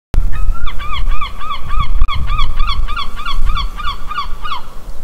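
Loud, rapid string of honking calls, about four a second, each rising then falling in pitch, over a low rumble; the calls stop shortly before the end.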